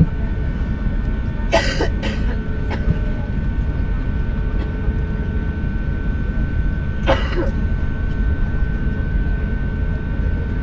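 Steady cabin rumble of an Airbus A350 taxiing, with a thin steady whine from its Rolls-Royce Trent XWB engines at taxi idle. Two brief sharp noises from the cabin come about one and a half seconds in and again about seven seconds in.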